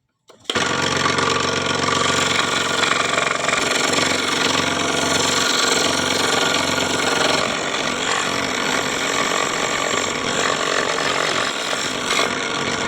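An electric power tool's motor starts suddenly and runs steadily with a dense whine, its low hum shifting about halfway through.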